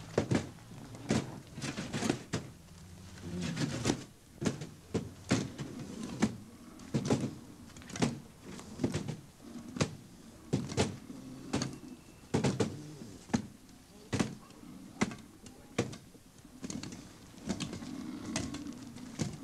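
Irregular sharp knocks from wooden poles being struck, about one or two a second, with low voices between them.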